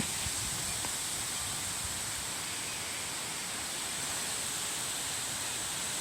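Strong nor'easter wind blowing through trees, a steady rushing noise with leaves rustling.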